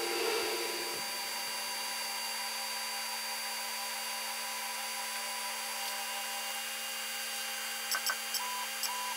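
Creality Ender 6 3D printer's stepper motors whining steadily as the printer homes, its bed driven down the Z lead screw, sped up four times. A few short clicks and brief tones come near the end.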